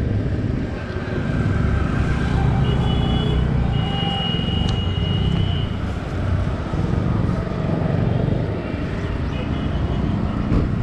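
Steady road traffic noise from vehicles passing on the highway, a low rumble that swells and fades. A high, steady tone sounds for a few seconds about a quarter of the way in.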